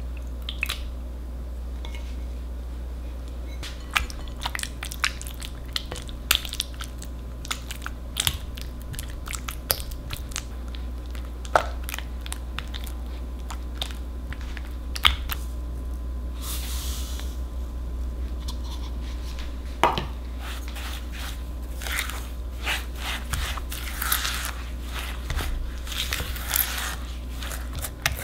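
Silicone spatula working cream cheese in a glass bowl: irregular soft scrapes and sticky clicks against the glass, busier in the last third, over a steady low hum.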